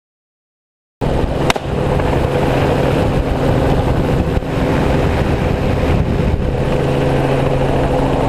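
Helicopter running steadily with a constant rotor and engine hum, cutting in abruptly after about a second of silence. One sharp crack about a second and a half in.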